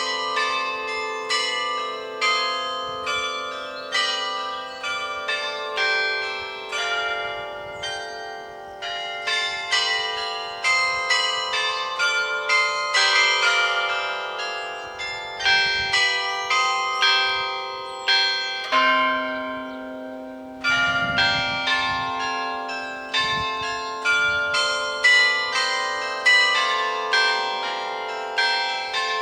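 Church bells of St. Mary's Cathedral ringing a peal: bells of several different pitches struck one after another, about one strike a second, each ringing on under the next. The ringing is melodic rather than one repeated note.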